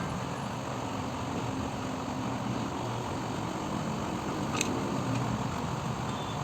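Steady mechanical hum and hiss, with one sharp click about four and a half seconds in.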